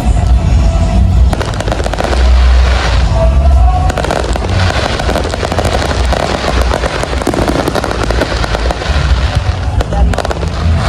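Aerial fireworks crackling and popping in a dense, rapid string of many small reports, over loud music with a heavy bass beat.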